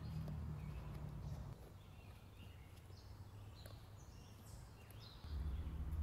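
Small birds chirping on and off over a steady low outdoor rumble, which drops away after about a second and a half and comes back louder near the end. Faint scuffs of rubber slip-on shoes on stone steps and paving.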